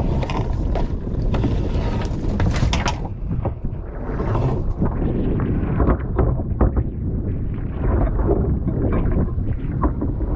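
Wind buffeting the microphone over choppy water slapping against a small wooden boat's hull, with scattered knocks and splashes.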